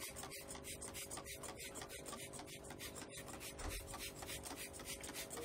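Hand trigger spray bottle being squeezed in quick repeated strokes, about three a second, each stroke a short hiss of mist.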